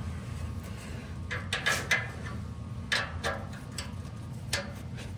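A wrench tightening the nuts on a muffler's exhaust clamp: a few short clusters of metallic clicks and scrapes over a steady low hum.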